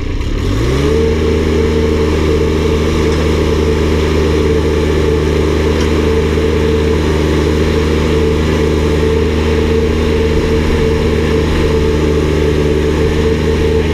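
Ditch Witch SK800's 24.8-horsepower diesel engine revving up from idle in the first second, then running steady at high throttle, the speed it is run at for drilling with the auger.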